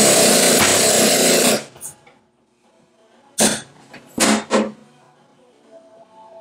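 Power sheet-metal machine cutting aluminium sheet: a loud run of about two seconds, then, after a pause, one short burst and three quick bursts as the tool is jogged along the cut.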